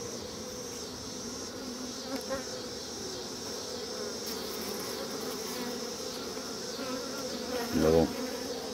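Steady hum of a honeybee colony on an open brood frame lifted from a small nuc. Shortly before the end a brief, louder sound stands out over the hum.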